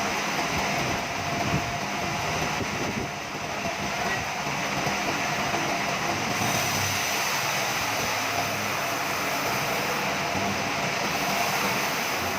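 Machinery running steadily: a continuous mechanical noise with a low hum underneath and no break.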